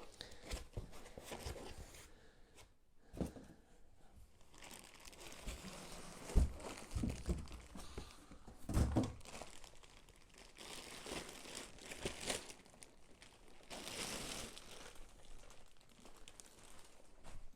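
Packing materials being handled during unboxing: a bag crinkling and rustling irregularly as it is opened. A few soft knocks are mixed in, the loudest about six and nine seconds in.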